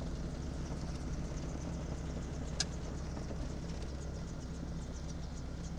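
BAD-12 Gyrotrainer gyroplane's engine running with a steady low drone, heard from inside the cockpit as it moves along the runway. One sharp click comes about two and a half seconds in.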